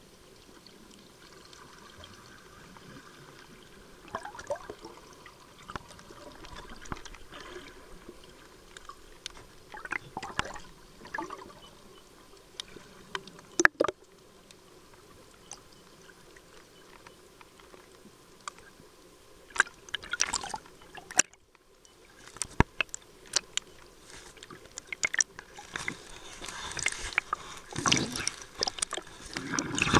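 Underwater water noise, gurgling and bubbling, with scattered clicks and knocks. The loudest is a sharp knock a little before halfway through, and the clicks get busier near the end.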